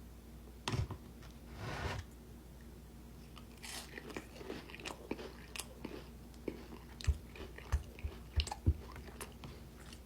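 A person eating chili with Townhouse crackers in it, crunching and chewing close to the microphone. A thump about a second in, then an irregular run of crisp crunches and low thumps in the second half.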